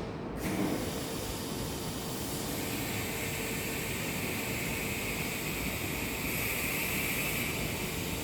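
Steady rushing hiss like a fan or air handler running, with a faint steady hum under it. It starts about half a second in, and a brighter hiss joins it a couple of seconds later.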